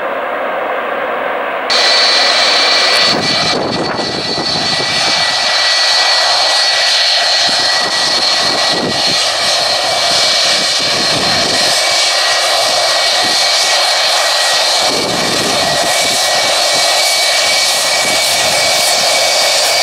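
Boeing 757 freighter's jet engines running at low power as it taxis. About two seconds in, the sound jumps louder and closer, and a steady high whine in two pitches sits over the engine noise.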